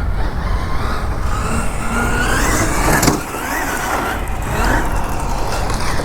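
Losi 6IX RC car running, its motor whine rising and falling several times as it accelerates and slows, over a steady rumble of tires on the ground, with one sharp knock about three seconds in.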